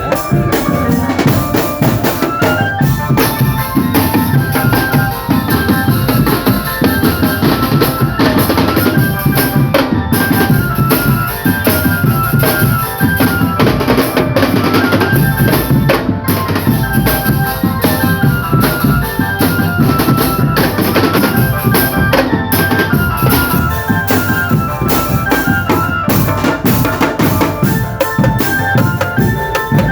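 Marching drum band playing: snare and bass drums beat a steady rhythm, with a stepping melody of short notes on top.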